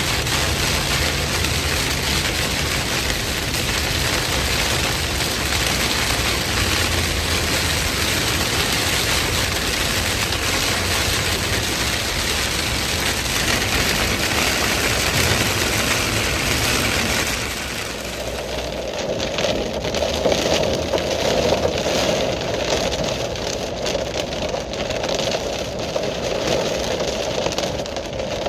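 Steady rush of heavy rain. About eighteen seconds in it changes to a quieter sound with a steady vehicle engine hum.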